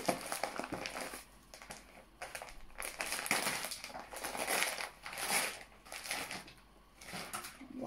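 Star-print wrapping paper crinkling and rustling in several uneven bursts as a small package is unwrapped by hand.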